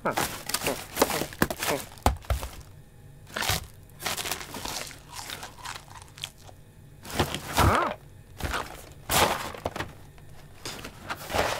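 Cartoon sound effects of a cat rummaging through a cardboard box of groceries: a run of crackling, crunching and crinkling of packets and paper.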